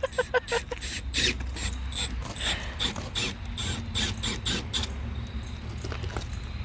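Repeated mechanical clicking, about three clicks a second, that stops about five seconds in; a few quick squeaks come just before it at the start, over a steady low hum.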